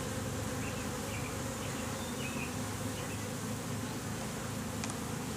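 Honeybees buzzing in a steady, dense hum around an opened hive, the bees stirred up by the inspection.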